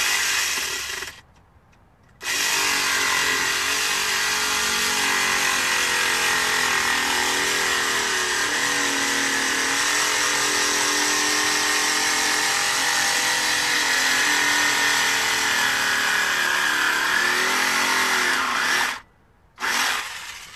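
Small battery-powered jigsaw-style carving saw cutting through a pumpkin. It runs briefly at the start, stops, then runs for about seventeen seconds with its motor pitch wavering as it cuts, and gives one more short run near the end.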